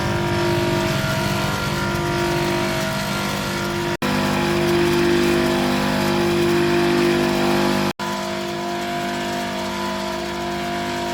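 Banana slicer's electric motor running steadily with an even hum, cutting out briefly twice.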